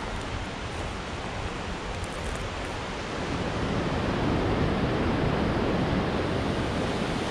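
Rushing whitewater of the Rogue River pouring through a narrow lava-rock gorge, a steady rush that grows louder about three seconds in.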